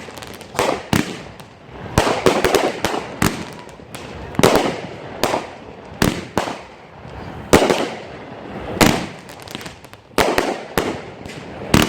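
Fireworks going off in quick succession: sharp bangs every second or so, several in clusters, with crackling between them.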